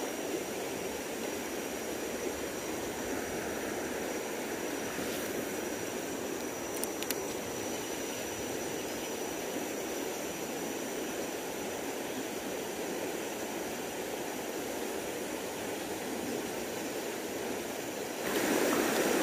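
Shallow river running over stones in a riffle: a steady, even rush of water.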